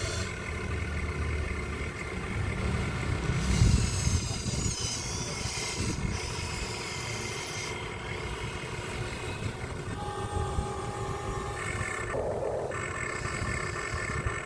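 Remote-control truck running, a low engine-like rumble with steady held tones over it, louder for a moment about four seconds in.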